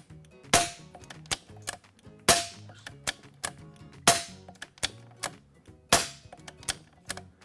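Brocock Compatto .22 PCP air rifle dry-fired with an empty magazine, four sharp cracks about one every 1.8 seconds, with lighter clicks of the cocking lever between shots. The rifle is being cycled shot by shot to check that the magazine indexes to each hole.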